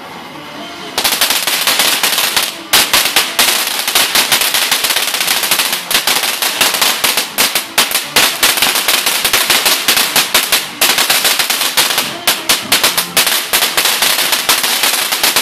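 Ground fountain firework crackling: a dense, loud run of rapid sharp pops that starts abruptly about a second in and keeps going, with a couple of brief dips, until it stops near the end.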